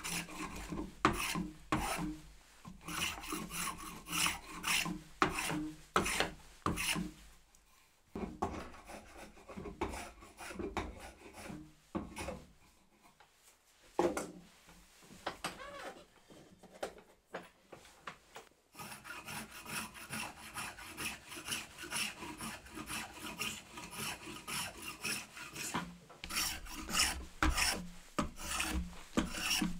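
Spokeshave shaving the corners of a wooden mallet handle: repeated short scraping strokes as the blade takes curls off the wood, with a quieter pause in the middle before the strokes resume.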